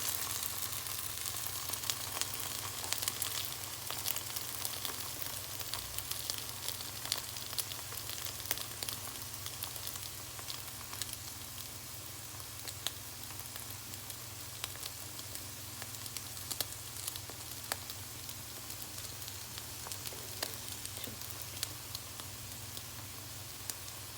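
Egg-soaked bread for French toast sizzling in butter in a frying pan over medium heat: a steady hiss with scattered small pops and crackles, easing off a little after the first few seconds.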